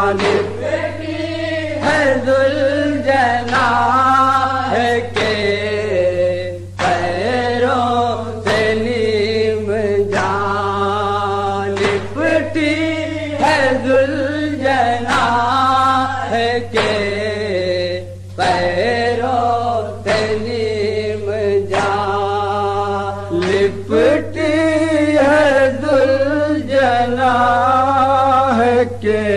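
Chanted nauha, a Shia mourning lament, sung in long wavering melodic lines that pause briefly every few seconds, over a steady low hum.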